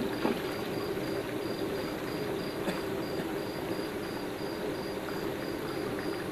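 Besan sev deep-frying in a large iron kadhai of hot oil: a steady sizzle and bubbling as a perforated strainer turns the batch, which is fried through and ready to lift out.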